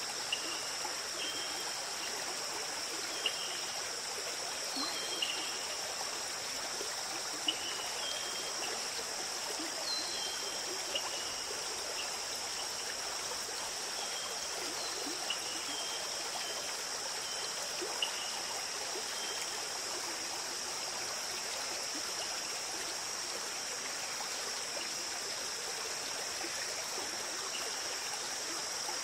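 Steady rushing, hiss-like noise with no speech, scattered through the first twenty seconds with short high chirps and a few sharp clicks.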